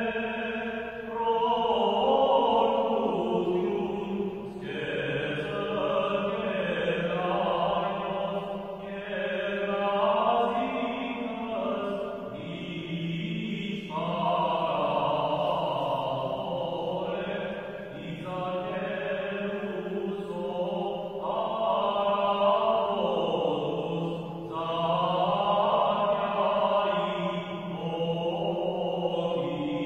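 Armenian liturgical chant sung by male voices, in sustained phrases a few seconds long with short breaths between them.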